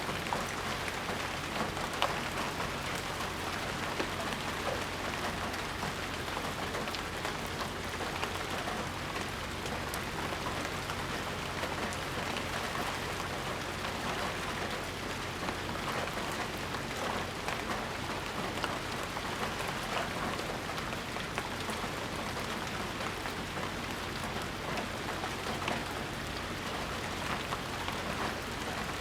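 Steady rain falling, an even hiss with many individual drops ticking on surfaces close by.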